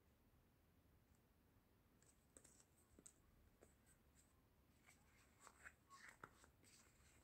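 Near silence with faint, scattered clicks and rustles of hands handling a watch box and its paper tag, growing busier in the last couple of seconds.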